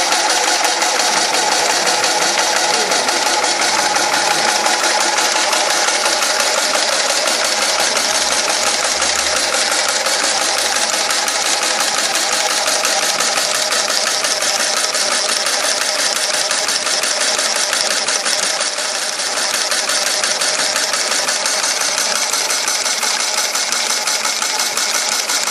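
Automatic insertion machine applying sachet-packed small toys at about 340 a minute: a steady, rapid, even mechanical clatter.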